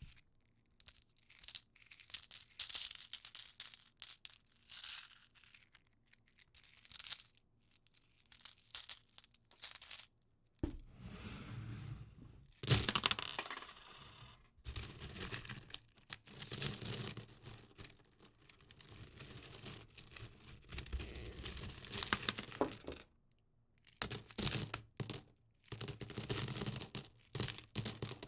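Metal coins clinking and jingling in a series of short bursts with brief pauses between them. About ten seconds in, the sound turns fuller and deeper, like a heap of coins rattling together, with one sharp, loud clatter about two seconds later.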